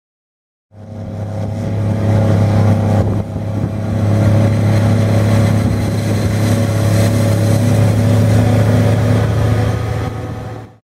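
Heavy diesel engine of silage-harvesting farm machinery running steadily with a deep, even drone. It starts abruptly about a second in, dips briefly about three seconds in, and cuts off suddenly just before the end.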